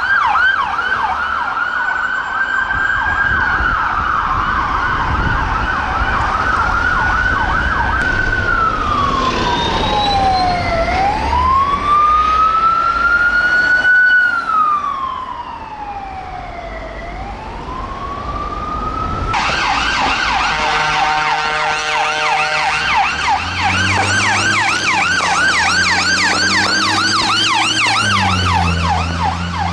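UK emergency vehicle sirens in a run of short clips. First an ambulance siren with quick up-and-down sweeps, then a slow wail rising and falling about every three seconds. About two-thirds through there is an abrupt change to a fast yelp siren over a deep engine note as a fire engine passes.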